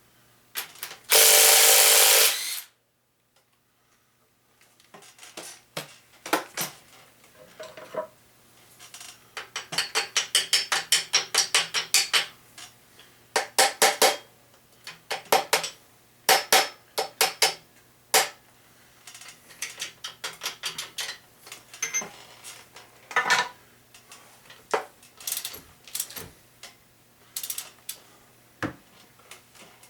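Hand tools at work on a 350 V8 short block during teardown: a loud rushing burst of noise about a second in, then a string of metallic clicks and clinks, with quick runs of rapid clicks like a ratchet wrench.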